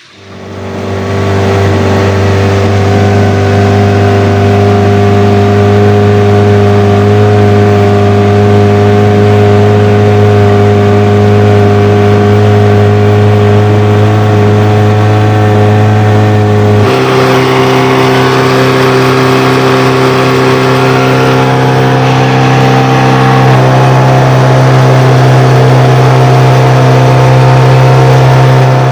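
Boat engine running steadily at a constant speed, close by; about halfway through its pitch steps up to a faster, steady speed.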